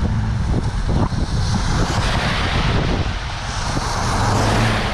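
A car engine hums steadily while a vehicle goes by, its rushing noise swelling over a couple of seconds and fading, heard through a partly open car window.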